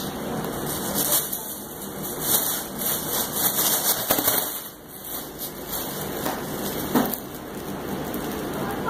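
Foil Mylar balloon crinkling and crackling as a small dog bites and paws at it, irregular crackles throughout with a sharper click about seven seconds in.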